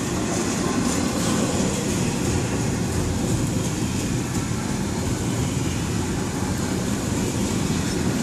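Double-stack container train's well cars rolling past, a steady rumble of wheels on the rails.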